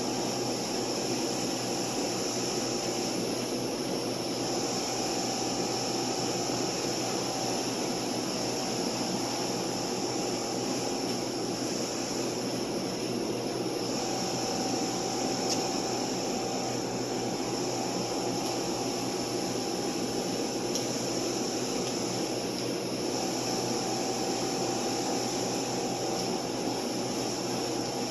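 Steady, unbroken humming background noise with a faint high whine over it.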